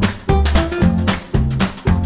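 Instrumental music with a strummed guitar and bass, chords struck about twice a second.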